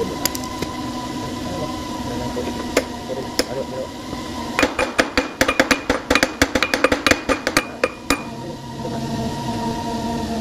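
Rapid hammer taps on a punch held against a truck automatic transmission's metal casing, metal on metal, about seven sharp ringing taps a second for some three seconds in the middle, over a steady background hum.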